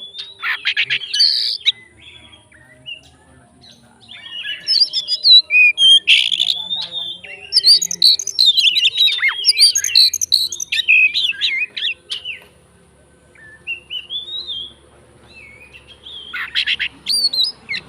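Oriental magpie-robin (kacer) singing a loud, rapidly varied song of whistles and chirps in several bouts, the busiest stretch running from about four to twelve seconds in, with short bouts near the start and the end.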